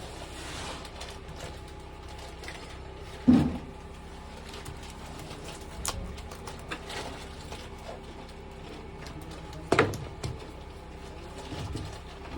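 Two loud sharp knocks about six seconds apart, with a few lighter clicks, over a steady low hum.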